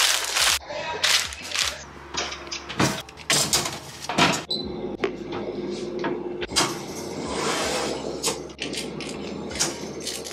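Baking paper crinkling and rustling as it is pressed into a metal baking tin, with short clatters of kitchen handling, then an oven door opening and a tin being slid onto the wire oven rack near the end.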